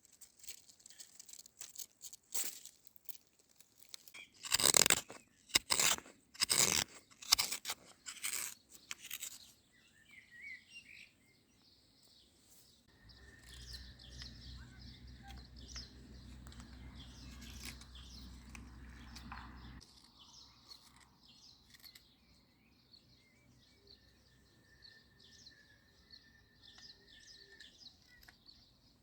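A series of loud, sharp crunches over the first ten seconds or so, with birds chirping faintly throughout. A low steady rumble comes in about halfway and stops a few seconds later.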